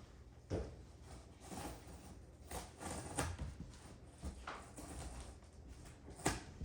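Cardboard box and packing material being handled: irregular rustles and knocks, the sharpest about six seconds in.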